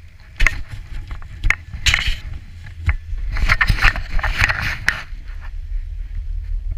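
Irregular clicks, knocks and scraping for about five seconds, over a steady low wind rumble on the microphone during a chairlift ride.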